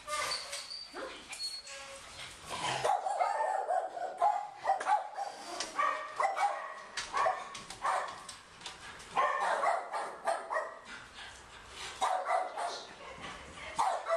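Shelter dogs barking repeatedly in irregular bursts, louder from about three seconds in.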